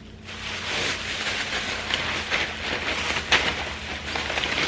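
Cecina (thin salted beef) sizzling as it fries in a pan, the sizzle swelling within the first second, with several sharp pops and crackles.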